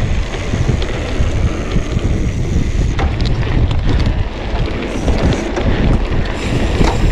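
Riding noise from a mountain bike on a dirt trail: wind buffeting the camera's microphone over the rumble and rattle of the bike rolling over the ground, with a couple of sharp knocks about three seconds in and near the end.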